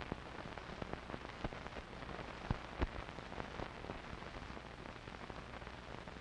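Surface noise of an old optical film soundtrack with no programme sound: a steady hiss and low hum, broken by scattered crackles and pops.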